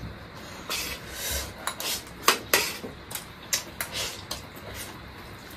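Eating from steel plates: a spoon scraping on the metal plate, with a string of irregular sharp clicks and taps.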